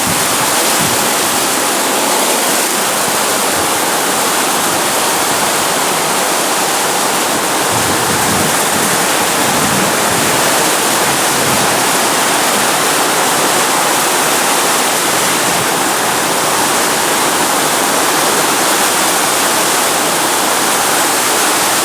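Very heavy rain pouring down, a loud, steady, even rush.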